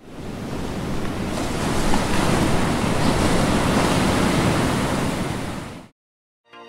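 Ocean surf breaking and washing up a beach, with wind rumbling on the microphone; it fades in at the start and fades out a little before six seconds in.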